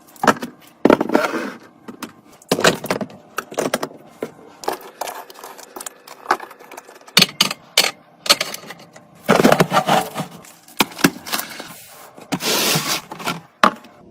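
Items being handled and set in place during restocking: irregular clicks, clatter and rustling scrapes of containers and packaging, with several longer, louder bursts of rustling.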